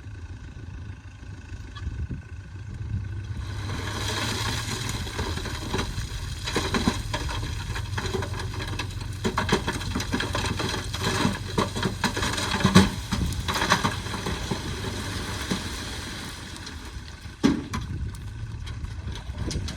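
Heavy machinery engine running steadily. About three seconds in, a long stretch of scraping and clattering with many sharp knocks begins, typical of rock and soil being dug and moved. It eases near the end, with one sharp knock late on.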